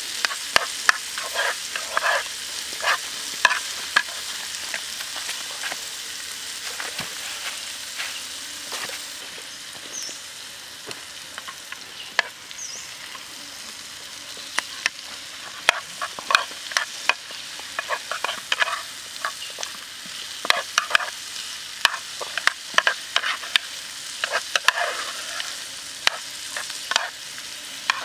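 Diced vegetables sizzling in hot oil in a black square pan while a metal spoon stirs and scrapes against the pan in quick clusters of clicks. The scraping thins out for a few seconds near the middle.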